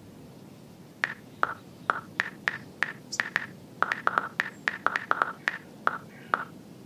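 Smartphone keyboard clicks as a search is typed: about twenty short taps, each with a brief pitched tick, coming in an uneven typing rhythm from about a second in until near the end.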